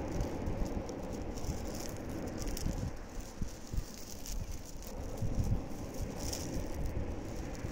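Waves breaking and washing over a pebble beach: a steady surf rush with the stones rattling and clattering in the wash, in short bursts several times.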